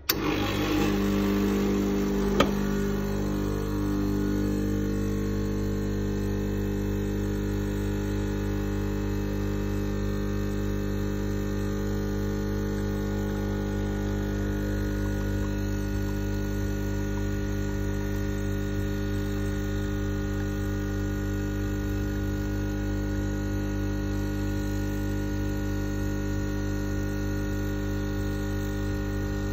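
Gaggia Classic espresso machine's vibratory pump humming steadily as it forces hot water through the coffee puck, pulling an espresso shot into two glasses. A single sharp click sounds about two seconds in.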